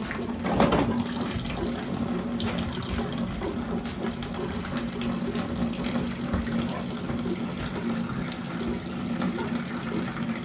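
Liquid running steadily from a tap into a container, over a steady low hum, with a brief knock about half a second in.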